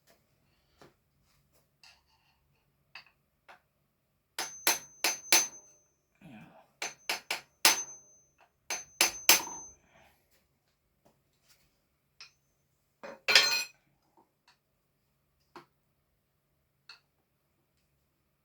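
Hammer striking metal in quick groups of blows, about four, then three, then three, several of them leaving a brief high ring, followed a few seconds later by a short metallic rattle. Faint clicks of metal parts being handled in between.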